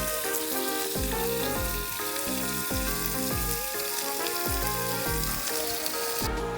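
Pork tongue sizzling as it fries in oil, a steady hiss that cuts off abruptly near the end, over background electronic music with a regular bass beat.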